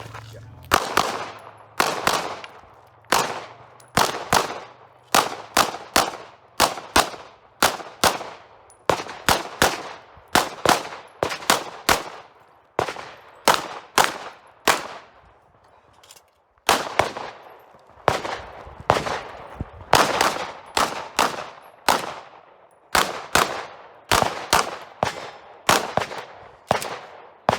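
A ported 9mm Glock pistol fired during a timed stage. Shots come mostly in fast pairs, strung together with short pauses between targets, and there is a longer break about 16 seconds in.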